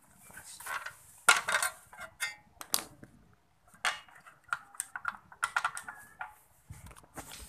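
Irregular clicks and light clatter of hand tools and motorcycle parts being handled on a tiled floor.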